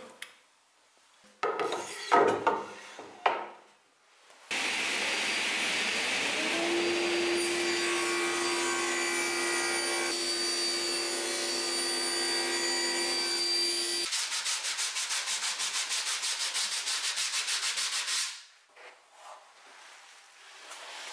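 Table saw cutting a strip of wood: a loud, steady cutting noise with a steady hum that starts abruptly after a few knocks of wood being handled, and stops suddenly. It is followed by about four seconds of fast rhythmic scraping, several strokes a second.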